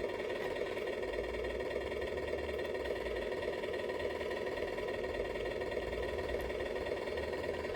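Small electric motor of an RC construction model running steadily with a constant whine, a low rumble coming and going underneath.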